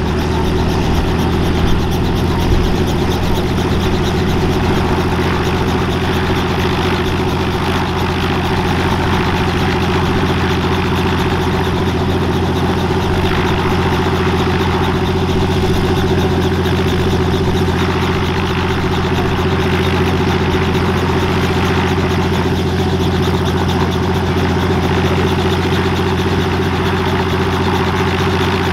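Robinson R44 Clipper II helicopter running steadily on the ground before lift-off: its six-cylinder Lycoming IO-540 engine and turning main rotor make an even, unchanging drone.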